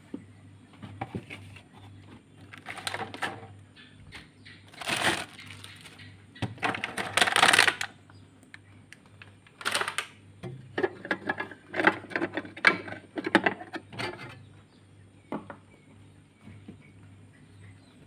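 Handling noises: irregular bursts of rubbing and scraping with clicks and light clatter, over a steady low hum.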